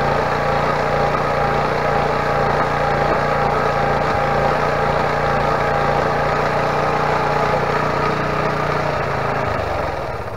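Small single-cylinder 5 hp Briggs & Stratton engine running at a steady speed, driving a homemade belt-drive starter rig for a diesel crane engine. Near the end it winds down and stops.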